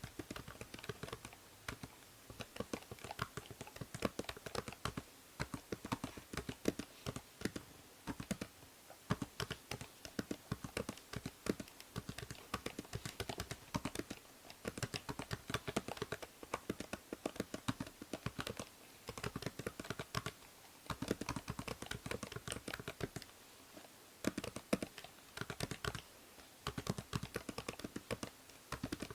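Typing on a computer keyboard: rapid runs of key clicks with a few short pauses between bursts, over a faint steady hiss from the binaural microphone.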